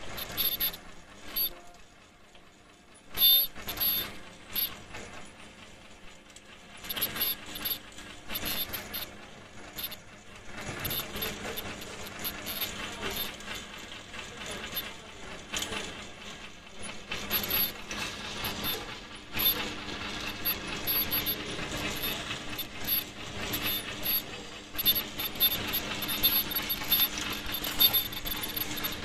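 Elastic earloop mask-making machine running: a steady hum with a dense, rapid clicking and clatter of its rollers and feed mechanism. It is quieter for a moment, then gets busier and denser after about seven seconds.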